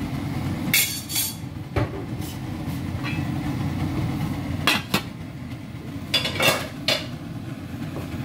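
Aluminium pot lid clanking against a large aluminium stockpot as it is handled and set on, covering the rice to finish cooking: a series of sharp metal clinks at irregular intervals. Underneath is a steady low rumble from the gas stove.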